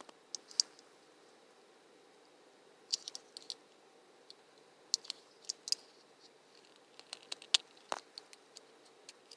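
Gerber Key Note folding knife being handled: scattered, irregular small clicks and scrapes of the metal blade, liner lock and pocket clip, about a dozen in all, some in quick pairs.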